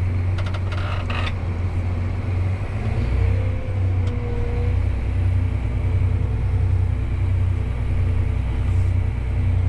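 Farm tractor engine running steadily, heard from inside the closed cab, as the tractor maneuvers a grain cart into unloading position. A few light clicks come about a second in, and the engine note shifts about three seconds in.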